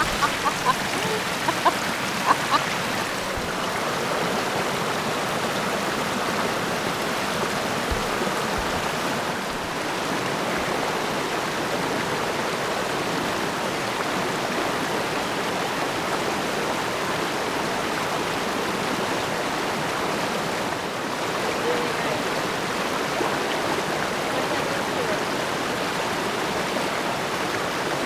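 A brook flowing steadily: a constant rush of running water, with a few sharp clicks in the first two or three seconds.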